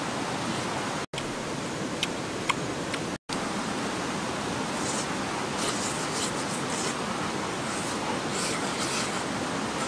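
Steady, even hiss of background noise with a few faint clicks, cut by two brief moments of dead silence about one and three seconds in.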